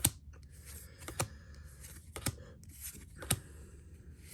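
Pokémon trading cards being handled one by one: four sharp card clicks, about a second apart, with faint rustle in between.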